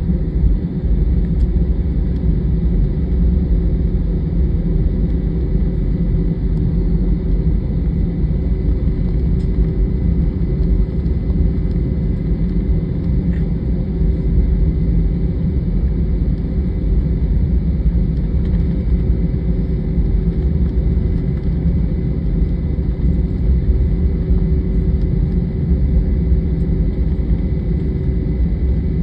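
Jet airliner heard from inside the passenger cabin: a steady, even low rumble of the engines and airflow, with a faint steady whine above it.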